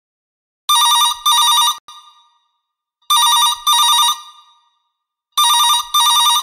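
Telephone ringing: three double rings, each a pair of short trilling bursts, about two and a half seconds apart.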